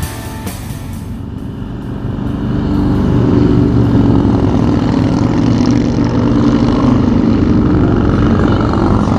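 Harley-Davidson V-twin motorcycles riding past one after another. The engine sound swells about three seconds in as the first bike draws near, and stays loud as more bikes follow.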